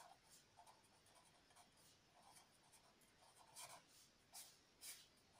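Faint scratching of a pen writing on paper: a run of short strokes, with a few louder ones in the second half.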